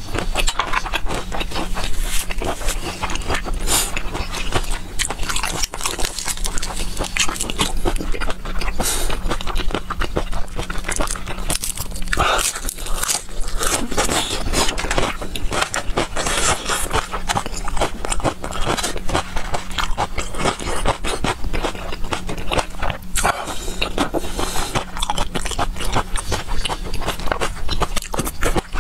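Close-up eating sounds: chewing and biting on spicy marinated shrimp, with dense wet mouth clicks and smacks throughout. A steady low hum sits underneath.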